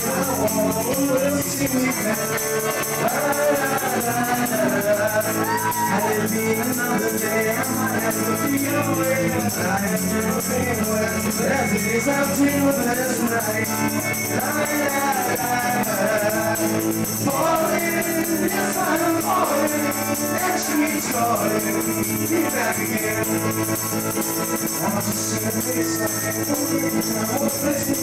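Live band music: a man sings lead into a microphone over his guitar and the band, playing continuously.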